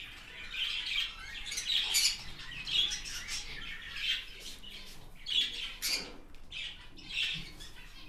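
Small pet parrots squawking and chirping: a string of short, high-pitched calls, about one or two a second.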